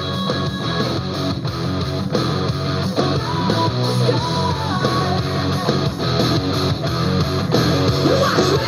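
Guitar-driven rock music playing loud and steady.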